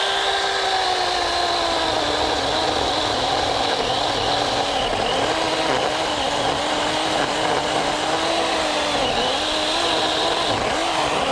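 Small 6-inch chainsaw running at speed and cutting wood: a steady whine that sags in pitch about two seconds in, then wavers up and down as the chain works under load.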